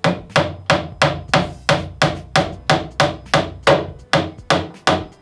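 Claw hammer driving a nail into pine moulding on a cabinet top: a steady run of sharp strikes, about three a second.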